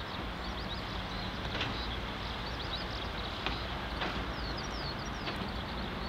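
Kei truck engine idling steadily, heard from inside the cab, with a few sharp ticks of rain on the body.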